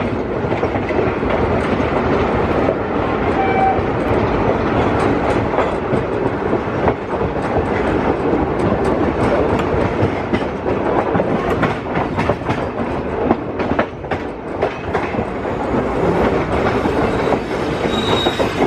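Indian Railways passenger train rolling past, its coach wheels clattering over rail joints and points in a continuous run of clicks.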